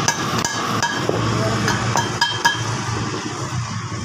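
A hammer tapping on the steel parts of a Fiat 480 tractor's front spindle: about six sharp, ringing metal-on-metal strikes at an irregular pace in the first two and a half seconds.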